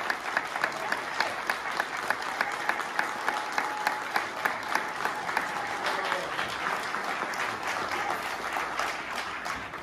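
A small group applauding: steady hand clapping that thins out near the end.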